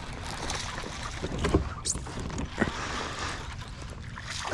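Water lapping against a kayak hull, with wind on the microphone and a few light knocks.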